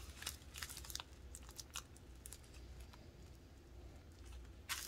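Small clear plastic bag of square resin diamond-painting drills being squeezed and turned in the hands: faint crinkling of the plastic and light clicks of the drills shifting against each other, with a louder crinkle near the end.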